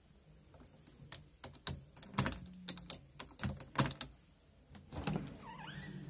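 A quick, irregular run of sharp knocks and clicks, about a dozen in three seconds, a few of them much louder than the rest.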